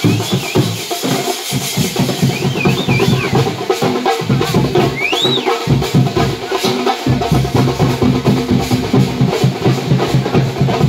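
Music with rapid, dense drumming and a steady low pitched line, with a few brief high gliding tones about two and a half and five seconds in.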